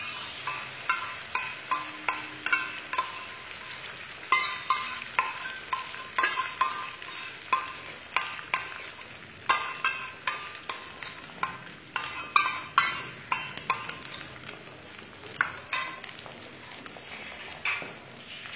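Beaten eggs frying in hot oil in a metal wok over chopped onions and green chilies, a steady sizzle. Frequent sharp clicks and scrapes come irregularly throughout, as a utensil stirs against the pan.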